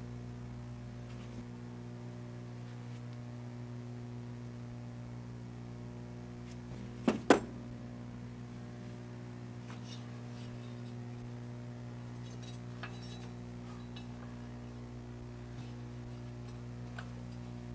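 Steady low hum with two sharp clinks about seven seconds in and a few faint light ticks.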